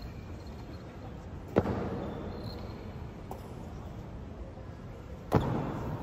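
Two sharp drill impacts from the honour guard on the hall's stone floor, about four seconds apart, each followed by a long echo.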